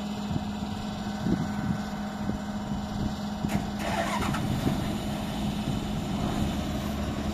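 Diesel engines of a Hitachi EX120 long-arm excavator and a New Holland 8060 combine harvester running as the excavator drags the combine, which is stuck in mud. A steady engine hum with scattered low knocks, and a short rushing noise about four seconds in.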